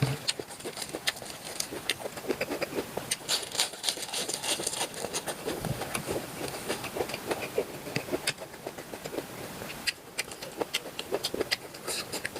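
Chewing and wet mouth smacks of someone eating cooked octopus: a rapid, irregular run of small clicks.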